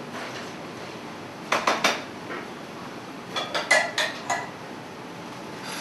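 A metal spoon clinking against a dish in two short clusters of sharp clinks, about a second and a half in and again around the middle, some with a brief ring, as strawberries are spooned out.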